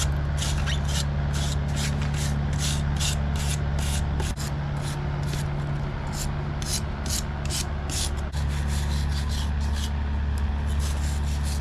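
Wire brush scrubbing charred, torch-burnt carved wood in regular strokes, about two a second, over a steady low hum.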